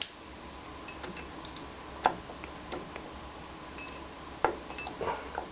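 Circlip pliers and a steel circlip clicking and clinking as the clip is spread and snapped onto a riding mower's front wheel axle. The light metallic clicks are scattered, with the sharpest about two seconds in and again past four seconds.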